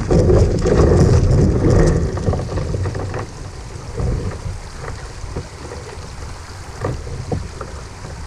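Kayak being paddled on a fast river: wind rumbling on the microphone and paddle splashes, heaviest over the first two seconds, then a quieter wash of water with a few light knocks near the end.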